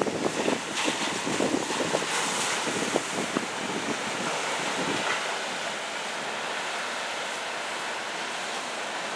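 Surf from typhoon swell breaking and washing ashore, with wind buffeting the microphone in the first few seconds, then settling into a steady rush.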